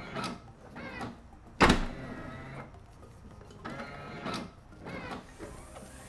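BMW E93 M3's electric trunk latch actuator motor whirring in several short runs, with one sharp clunk about a second and a half in as the latch releases the lid. The repaired actuator is working.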